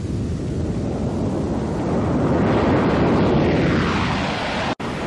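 Boeing B-47 Stratojet six-turbojet bomber flying past: the jet noise swells, then a whine falls in pitch as it goes by. The sound cuts out for an instant near the end.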